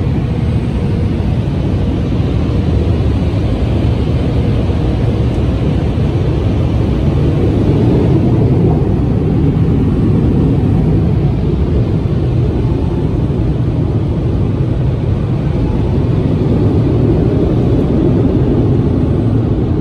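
Car wash air-dryer blowers running steadily, a loud even rush of air heard from inside the car's cabin.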